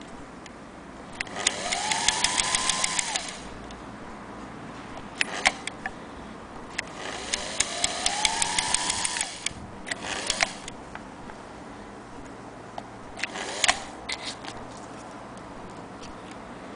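Singer Featherweight 222K electric sewing machine run in two bursts of about two seconds each: the motor whine rises in pitch as it speeds up and falls as it slows, over a fast, even clatter from the stitching mechanism. A short third run and scattered clicks follow near the end.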